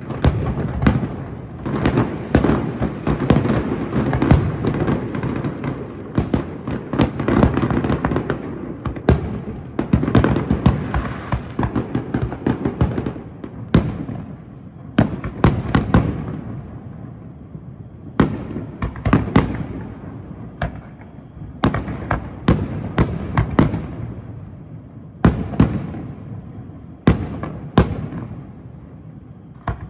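Aerial fireworks shells bursting: for about the first half, many bangs in quick succession over a continuous rumble and crackle, then spaced-out single and paired bangs.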